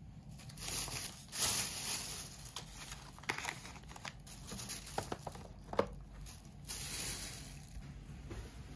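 Plastic snack packets and a plastic carrier bag crinkling as they are handled and laid on a wooden table, with a few light taps.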